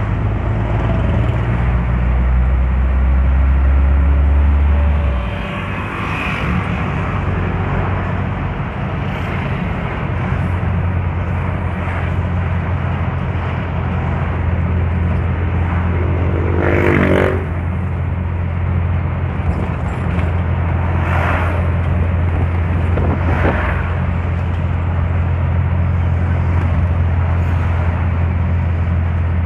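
Engine and road noise of an owner-type jeep heard from inside while driving: a steady low drone that shifts and eases slightly about five seconds in, with a few brief louder sounds, the strongest about halfway through.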